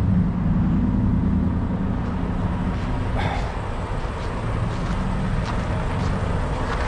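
Heavy truck's diesel engine running steadily at low revs, a deep even hum, with one short sharp noise about three seconds in.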